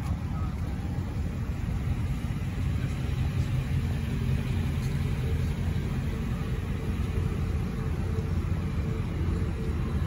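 Ford Mustang GT's 5.0 V8 idling with a steady low rumble.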